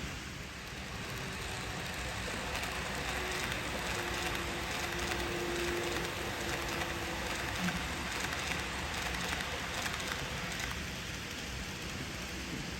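N gauge model freight train running on the layout track: a steady hiss of wheels on rail, with a faint motor whine from about three to six seconds in.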